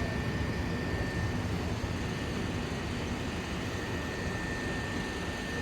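Steady low rumble and hum with a constant high-pitched whine, typical of an electric train standing at a station platform with its auxiliary equipment running.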